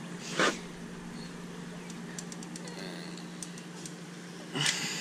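Caulk gun being squeezed while laying a bead of caulk along a metal window opening: two short noisy squeeze sounds about four seconds apart, with a few faint clicks between, over a steady low hum.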